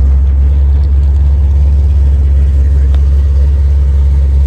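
Steady low rumble of a vehicle heard from inside its cabin.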